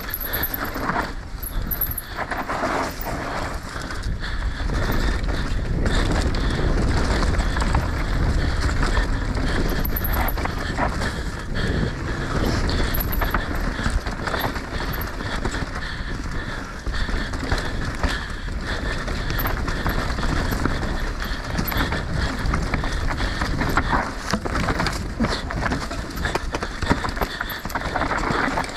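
Mountain bike descending a dry dirt trail, its tyres rolling over dirt and leaf litter. The bike rattles and clatters over bumps all the way down, over a heavy low rumble of wind on the camera microphone.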